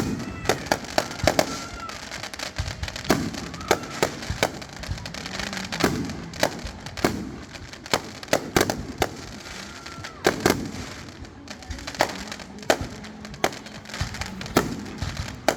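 Fireworks going off: an irregular run of sharp bangs, several close together at times, with a few short whistling tones among them.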